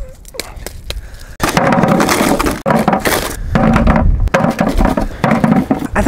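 Black walnut hulls being cracked and crushed apart by gloved hands: repeated crunching and cracking, getting louder and denser after about a second and a half, as the black outer husk is broken off the nuts.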